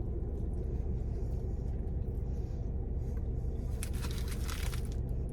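Steady low rumble of a car idling, heard inside its cabin, with a brief crackling burst about four seconds in.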